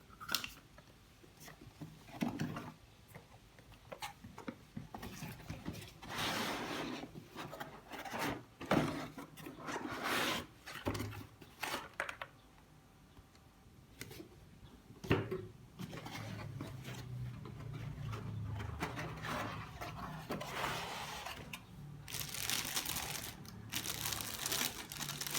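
Packaging being handled and opened: irregular bursts of rustling, crinkling and tearing with a few sharp knocks, the crinkling heavier near the end.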